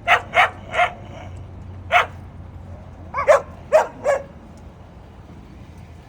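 Dog barking: a quick run of three sharp barks, a single bark, then a burst of four, before it stops a little after four seconds in.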